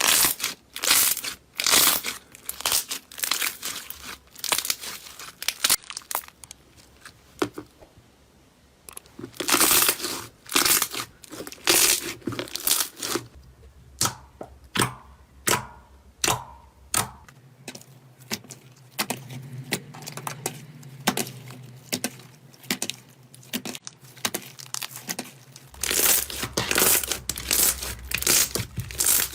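Slime being squished and stretched, giving irregular crackling and popping in dense bursts, with a quieter stretch about a quarter of the way in.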